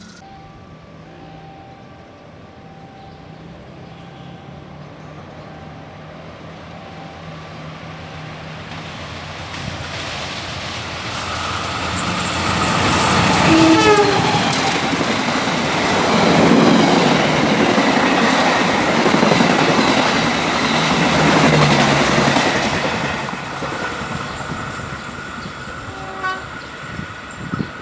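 A train approaches and passes close by. Its rumble builds steadily, and a brief horn sounds with a dropping pitch as the front goes by. The cars then clatter past on the rails before the noise fades away.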